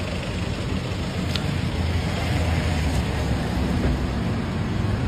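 Road traffic noise: a steady rumble of car engines and tyres, growing a little louder about two seconds in.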